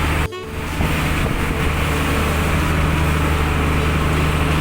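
An engine runs steadily with a low drone under a loud rushing of wind. The sound drops out briefly just after the start.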